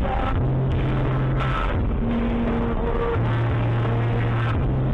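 Electronic music with held bass notes that start and stop every second or so, stepping in pitch, over a steady noise.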